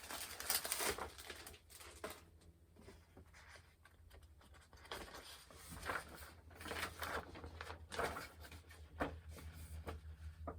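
Packaging rustling and crinkling in irregular bursts as parts are handled and pulled from a box, over a steady low hum.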